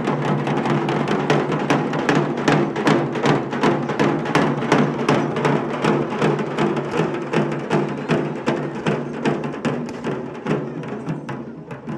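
Large barrel drums beaten in a fast, driving rhythm of several strokes a second over a held low tone, fading somewhat near the end.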